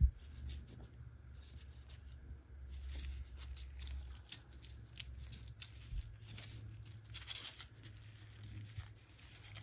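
Gloved hands handling a rusty steel loudspeaker frame: faint rustling and small scattered clicks and scrapes of metal, over a low steady hum.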